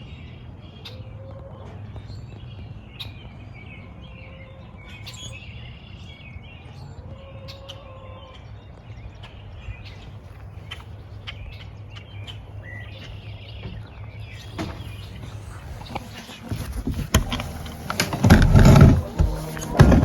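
Chickens chirping and giving a few low drawn-out calls over a steady low hum. About fifteen seconds in, music begins, with several heavy thumps near the end.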